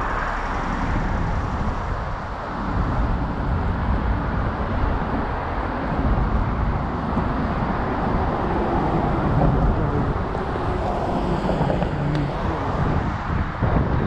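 Wind buffeting a helmet-mounted camera's microphone on a moving electric scooter, with tyre noise and uneven bumps from riding over a rough path.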